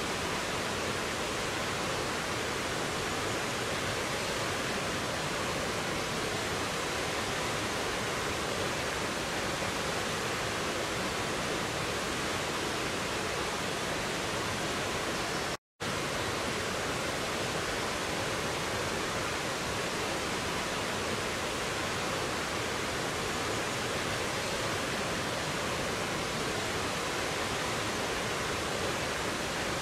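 Mountain stream rushing over rocks and a small waterfall: a steady, even rush of water. The sound cuts out for an instant about halfway through, then resumes unchanged.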